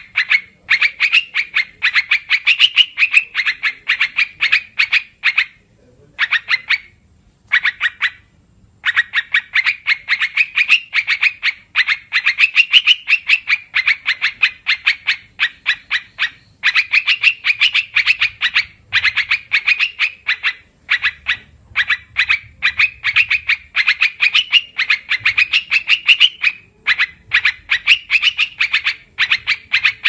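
Lure recording of an olive-winged bulbul (merbah belukar, called trukan or karuwang by bird keepers) calling: fast runs of short, high chattering notes in phrases several seconds long, broken by brief pauses.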